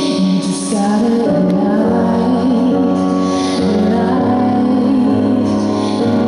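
Recorded song with a woman singing over sustained accompaniment, played as routine music.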